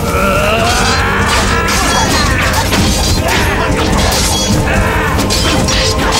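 Film fight soundtrack: dramatic music under a rapid run of sharp weapon clashes and impact hits from a sword fight.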